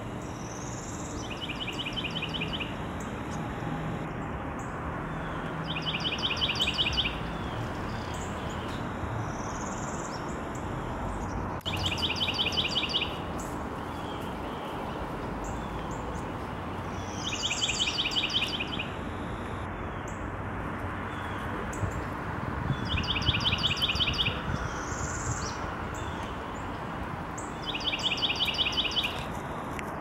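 A songbird singing the same short song about every five to six seconds: a fast trill of rapid repeated notes, some songs opening with a rising high note, over steady background noise.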